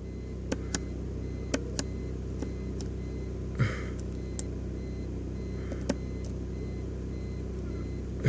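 A few irregular small clicks of fingers pressing the buttons on a TriStar remote meter, over a steady low hum.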